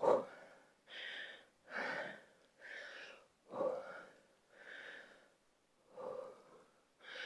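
A woman breathing hard from exertion during a dumbbell squat-and-deadlift exercise, quick even breaths about one a second.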